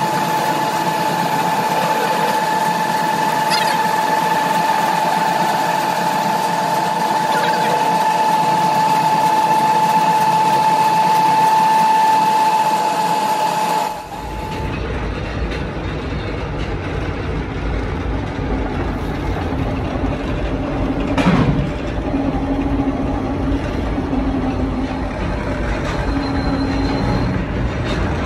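Metal lathe turning a steel truck axle shaft, the cutting tool giving a steady whining tone as it takes its cut. About 14 seconds in the sound changes abruptly to a lower running rumble of the lathe, with a single knock a few seconds later.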